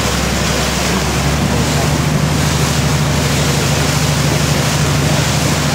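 River taxi's engine running with a steady low hum, under a loud, even rush of water and wind noise on the microphone. The engine hum grows stronger about a second in.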